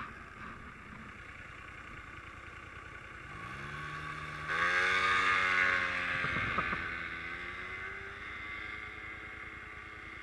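A small bike's engine revving up about three and a half seconds in, loudest for a second or two, then easing to a steadier, quieter note as it pulls up a slight offroad hill.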